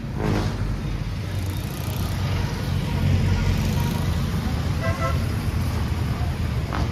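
Street traffic: a steady rumble of passing vehicle engines, with a brief horn toot about five seconds in.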